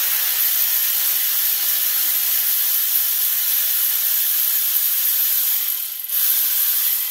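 Powered ratchet running steadily as it spins out the water pump bolts, a loud hissing whir that drops out briefly about six seconds in and picks up again.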